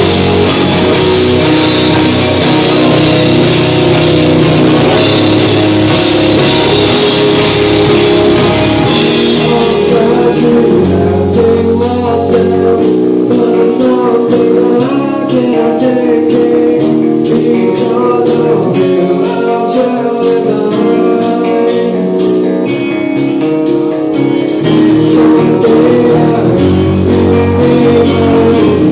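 Rock band playing live: drum kit, electric guitars and bass, loud throughout. About a third of the way in the music thins to a lighter passage driven by a quick, even tapping beat with the deep bass gone, and the bass comes back near the end.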